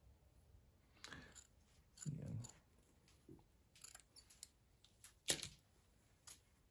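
Small scissors snipping through felt: a few quiet, scattered cuts and blade clicks with soft rustling of the fabric, and a sharper click about five seconds in.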